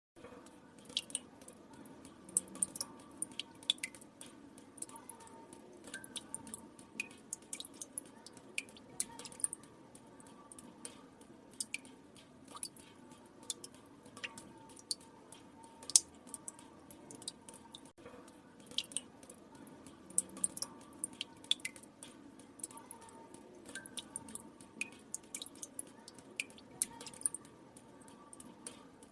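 Water drops falling into still water, a few irregular plinks and drips each second, one noticeably louder about halfway through, over a faint steady background.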